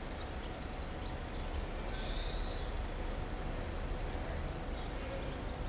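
Outdoor ambience: a steady low rumble, with one short, shrill bird call about two seconds in.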